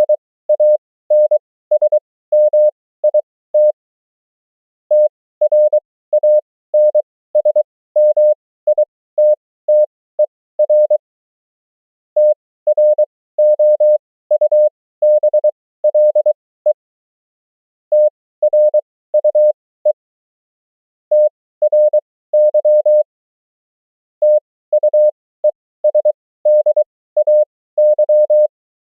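Morse code (CW) sent as a single pure tone keyed on and off in dots and dashes, at a 23 wpm character speed with spacing stretched to an effective 20 wpm. Words and abbreviations come in quick groups with short pauses between them.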